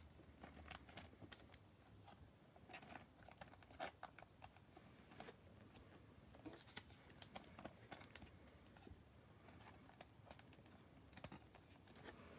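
Faint, irregular clicks and taps of trading cards being handled, squared up and set down on a tabletop.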